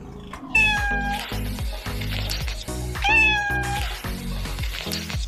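A cat meowing twice, each meow about half a second long, the second falling in pitch, over background music.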